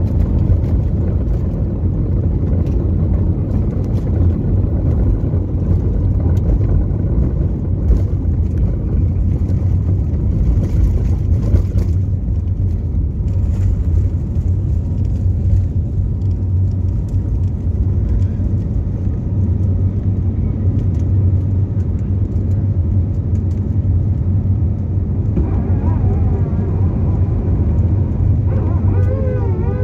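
Airbus A320-family airliner's jet engines at takeoff thrust, heard from inside the cabin over the wing: a loud, steady rumble and rush through the takeoff roll and the climb after liftoff. Near the end a wavering, pitched tone joins in.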